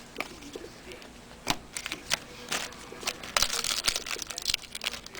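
Thin, candy-wrapper-like trading-card pack wrappers crinkling and tearing while cards are handled: a run of light irregular clicks and crackles, busier in the second half.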